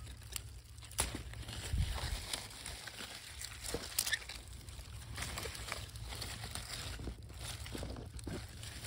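Strawberry plants rustling and crinkling as berries are picked by hand, with scattered small sharp snaps and clicks.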